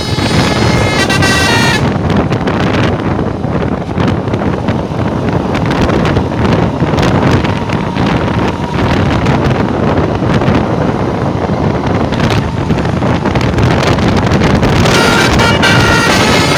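Tour bus's multi-tone 'telolet basuri' musical horn playing a melody for about the first two seconds, then a steady rushing noise of the vehicle with wind on the microphone, and the horn melody starts again near the end.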